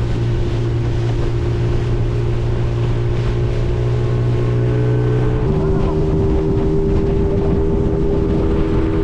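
Outboard motor of a small open boat running steadily under way, with wind on the microphone. The engine's hum changes abruptly about five and a half seconds in.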